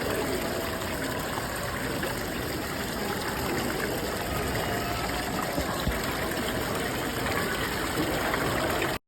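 Waterfall: water falling and splashing in a steady rush that cuts off abruptly near the end.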